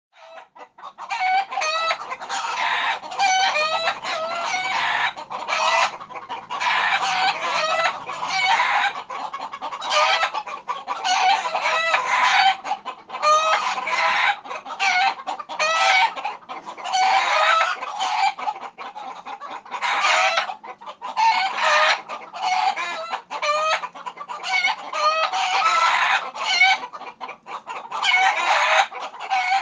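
Frightened roosters squawking and cackling in alarm. Several birds call over one another in dense bursts of a few seconds, with short breaks between.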